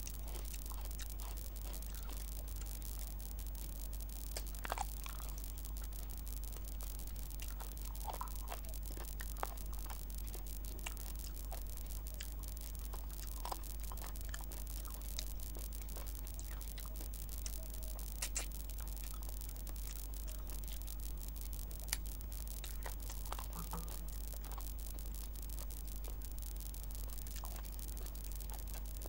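Soft wet chewing and mouth sounds of someone eating rice and chicken curry by hand: scattered small squishes and clicks over a steady low hum and hiss.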